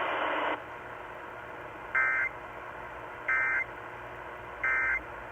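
Three short, identical bursts of Emergency Alert System end-of-message data tones, buzzy digital chirps about 1.3 seconds apart, heard over a weather radio receiver with steady background hiss and a brief rush of hiss at the start. The three bursts are the EAS end-of-message code that closes the flash flood warning broadcast.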